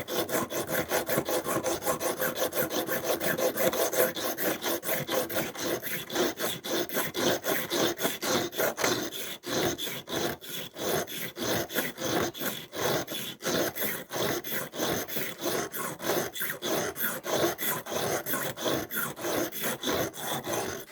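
Steel blade of a Victorinox Swiss Army knife ground dry on a scythe whetstone in steady, rapid back-and-forth strokes, stone rasping on metal. This is coarse stock removal to cut the blade down, not fine edge sharpening.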